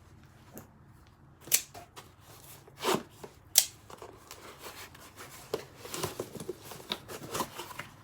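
Parts packaging being handled: a few sharp crinkles and clacks in the first half, then a run of quick crinkling and rustling from about five and a half seconds in.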